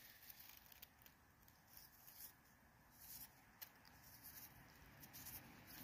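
Near silence, with a few faint, short scratches and clicks scattered through it.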